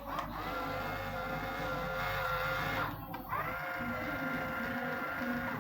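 Small DC motor running with a steady whine, spinning up at the start. It cuts out briefly about three seconds in, then spins up again and runs on.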